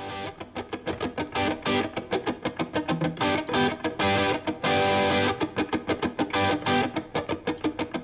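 Background music: an electric guitar playing a fast, rhythmic instrumental.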